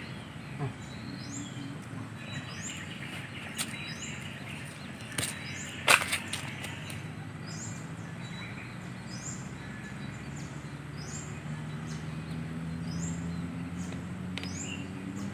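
Streamside ambience: a short, high rising chirp repeats about once a second over a low steady hum, with a steady high buzz for a few seconds. Several sharp clicks; the loudest comes about six seconds in.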